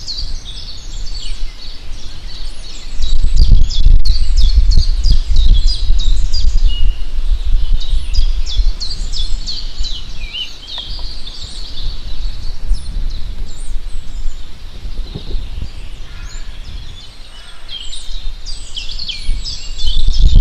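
Many small songbirds chirping and trilling together in quick, overlapping calls, over a low, uneven rumble.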